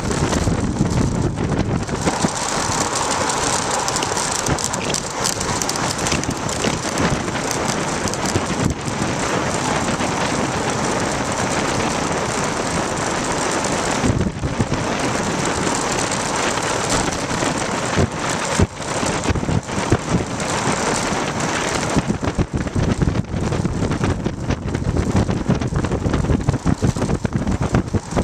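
Wind rushing over a bicycle-mounted camera's microphone during a fast road-bike descent, with frequent clicks and knocks from the homemade camera mount bouncing over the road. The rattles come thicker and the rush grows more uneven in the last several seconds as the pace drops.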